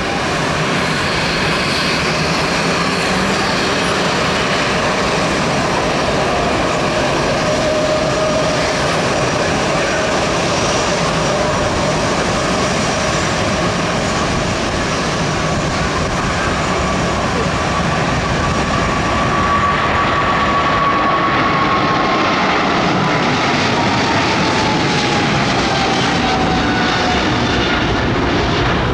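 Swiss Boeing 777-300ER's twin GE90 turbofans at takeoff thrust: a steady, loud jet roar with a whine on top. Over the last several seconds the whine slides down in pitch as the airliner lifts off and climbs past.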